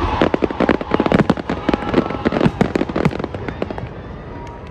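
Aerial fireworks going off in a rapid, dense volley of bangs and crackling pops. The volley thins to a few separate pops near the end.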